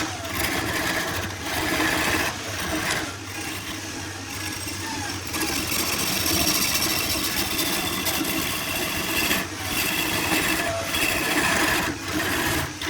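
A woodworking power tool running and cutting into wood, a continuous whir with scraping that breaks off and resumes several times.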